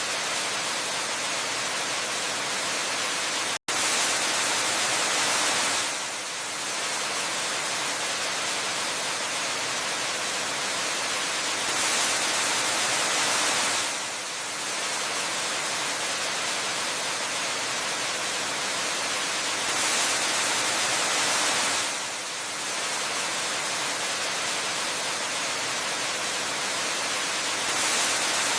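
Waterfall rushing as a dense, steady hiss, with a slightly louder, brighter swell about every eight seconds. About three and a half seconds in, the sound cuts out for an instant.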